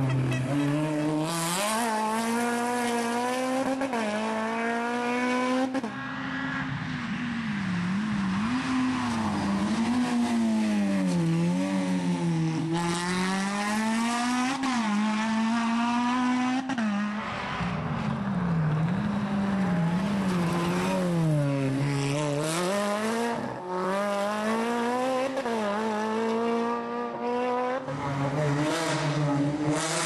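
Rally car engine working hard through a stage. The revs climb and drop again and again as it accelerates, shifts and lifts off for corners.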